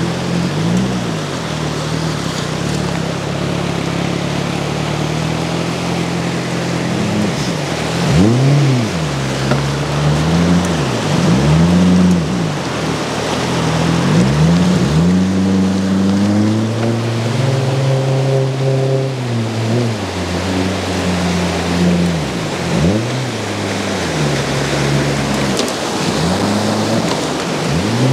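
Outboard motor of a PVC water-jet boat running a river rapid. Its pitch repeatedly drops and climbs again as the throttle is eased and reopened, over the steady rush of white water.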